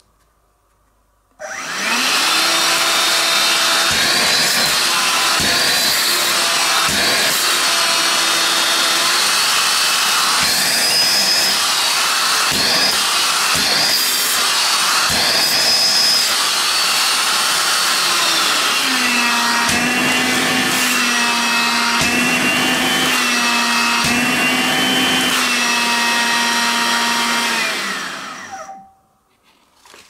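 Makita CL282FD 18V brushless cordless stick vacuum switched on and running with a high motor whine. About two-thirds of the way in the whine steps down to a lower pitch as the motor slows to a lower mode, and near the end the vacuum is switched off and winds down.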